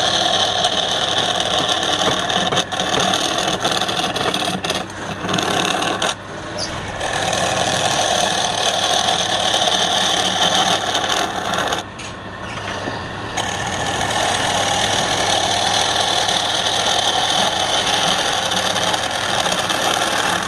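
Wood lathe running while a turning tool cuts into the spinning wood, a steady scraping hiss that eases off briefly about 6 seconds in and again about 12 seconds in.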